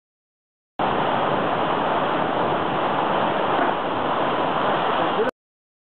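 Small waterfall pouring into a rock pool: a steady rush of falling water that starts abruptly about a second in and cuts off sharply near the end.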